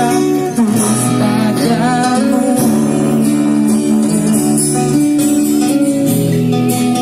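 Music: an acoustic guitar strummed under a voice singing.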